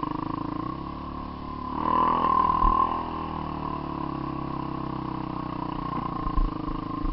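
Small off-road motorcycle engine running, revving up briefly about two seconds in and then settling to a steady pace, with a couple of short knocks as it rides over rough ground.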